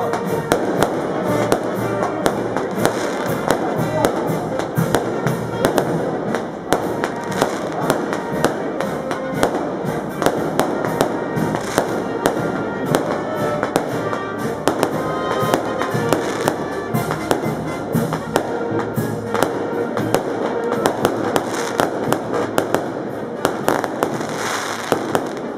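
Firecrackers popping in a long irregular string, several sharp cracks a second, over music and the noise of a crowd.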